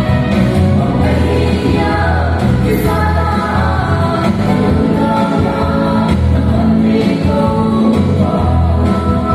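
A woman sings a gospel song through a handheld microphone, over instrumental accompaniment with a steady bass line.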